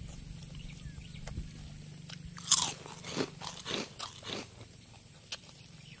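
A person biting and chewing crunchy deep-fried street food close to the microphone: a run of about five loud crunches in the middle, then a single sharp click near the end.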